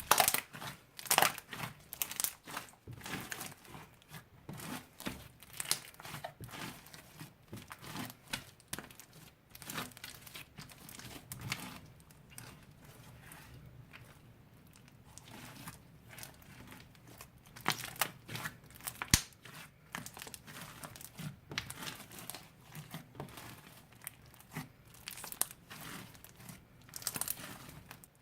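Slime being squeezed, stretched and folded by hand, making irregular crackling and clicking sounds, several a second, with louder pops here and there.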